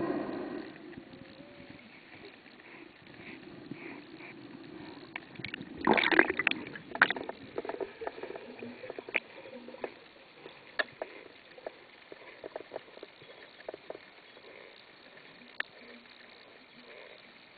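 Underwater sound picked up by a camera in its housing: a low hiss with scattered sharp clicks and knocks, loudest in a cluster about six to seven seconds in.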